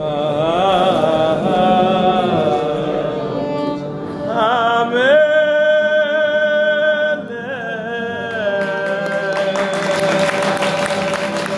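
A man singing a slow, drawn-out melody, with long held notes that waver, one about halfway through and another near the end.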